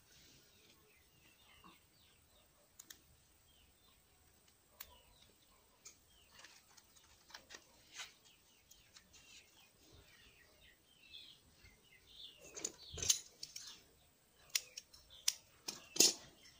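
Hands working a plant into potting soil in a cut plastic bottle pot: soft rustles and crackling clicks of plastic, leaves and soil, loudest in the last few seconds. Faint bird chirps run underneath.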